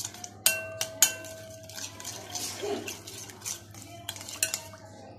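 A metal spoon stirring a thin, wet sauce in a glass bowl, clinking and scraping against the glass. The sharpest strikes, about half a second and a second in, leave a short ringing tone, and a few lighter clinks come near the end.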